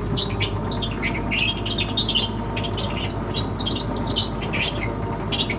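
Kubota KX71-3 mini excavator tracking forward, its diesel engine running steadily under repeated, irregular squeaking and creaking from the rubber tracks and undercarriage. This is the noise left after the roller repairs, coming mainly from the left track, which the owner thinks could be the front idler or track pieces worn down to the metal.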